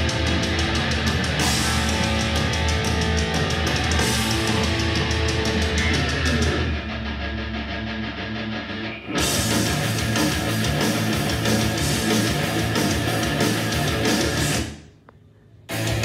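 Heavy rock music with distorted guitar and drums played through an Anker Soundcore Motion+ portable Bluetooth speaker for a sound test. The treble thins out for a few seconds in the middle. Near the end the music cuts off for about a second and starts again.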